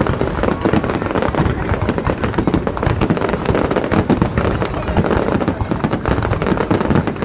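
Fireworks display: a dense, continuous barrage of bangs and crackling bursts, many per second, with no break.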